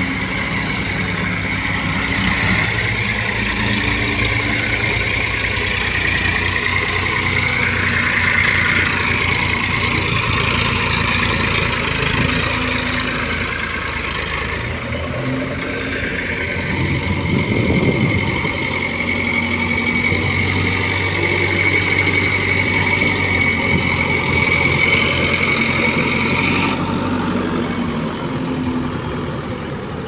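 Diesel engines of a JCB 3DX backhoe loader and an Eicher 480 tractor running steadily, with a steady high whine from about halfway until a few seconds before the end.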